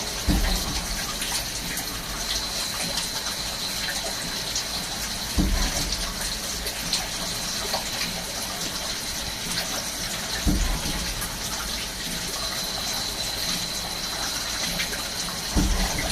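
Swiss-type CNC lathe running a cutting cycle: a steady gush of cutting-oil coolant under a thin, steady high tone, with a short low thump recurring about every five seconds.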